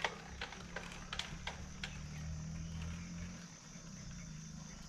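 Quiet outdoor background with a few light clicks in the first couple of seconds and a low hum that rises and fades in the middle, over a faint steady high hiss.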